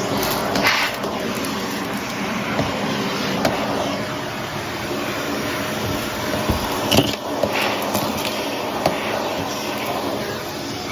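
Shark stick vacuum running steadily with its brushroll on carpet, with a few short crackles and clicks, the loudest about seven seconds in.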